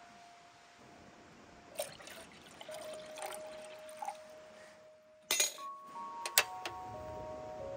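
Water poured from a plastic jug into a stainless steel camp kettle, with a few sharp metal clinks as the kettle is handled, over soft background music with held notes.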